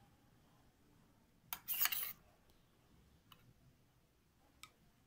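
Metal spoon against a steel bowl while scooping melted ghee. There is a click and a short scrape about a second and a half in, then two faint taps.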